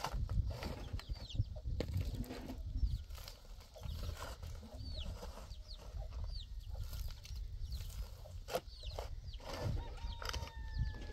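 Chickens clucking with many short, high, falling chick peeps, over the scrapes and a few sharp knocks of a long-handled shovel working stony ground.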